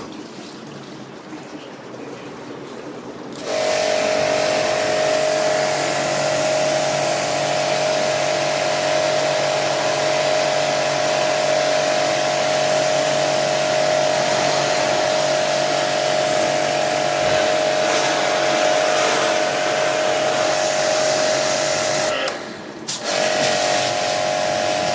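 Electric pressure-washer pump starts about three and a half seconds in and runs with a steady whine over a spray hiss, as used for washing an air conditioner. It cuts out for a moment near the end and starts again.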